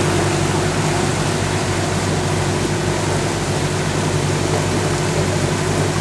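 Cruise boat's engine running steadily under way: an even low drone with a constant rushing noise over it.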